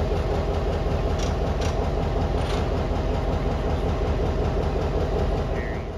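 Diesel-electric locomotives idling: a steady, even low engine rumble, with a few faint clicks between about one and two and a half seconds in.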